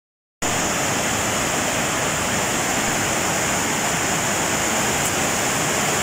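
Swollen, muddy rainy-season river rushing over rocks in waterfall rapids: a steady, loud wash of whitewater that starts suddenly just under half a second in.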